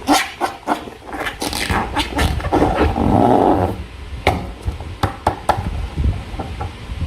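Slime being squished and worked by hand, with rapid sticky clicks and wet pops. A denser squelching stretch comes a little before the middle.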